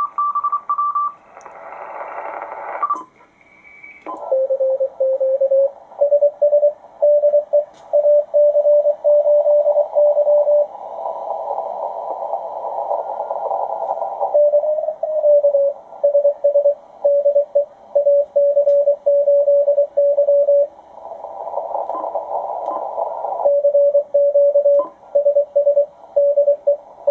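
Morse code (CW) signal received on an HF ham transceiver: a steady tone of about 600 Hz keyed on and off in dots and dashes over receiver hiss. It is tuned in on the 40-metre CW band after a brief higher tone and a short pitch glide in the first few seconds.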